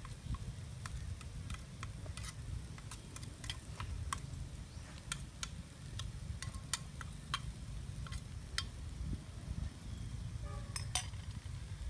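Metal spatula and spoon stirring and scraping a chopped eel mixture in a metal wok, giving scattered irregular clicks and clinks of metal on metal, with a light sizzle from the frying. A low steady rumble runs underneath.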